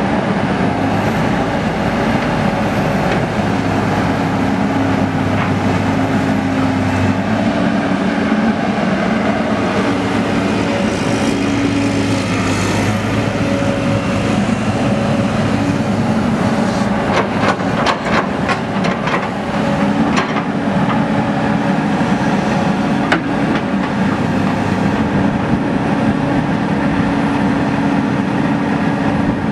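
John Deere 330C LC excavator's 8.1-litre six-cylinder diesel engine running steadily, its note changing a few times. A run of sharp metallic clanks comes in after about halfway, and more follow near the end.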